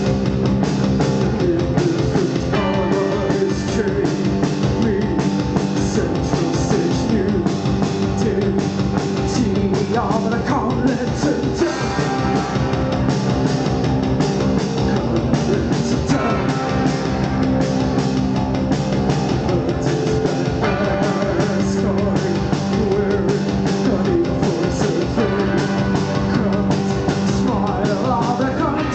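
A post-punk band playing live, heard from the audience: a steady drum kit, bass and guitar with sustained low notes. A sung voice comes in about ten seconds in and again near the end.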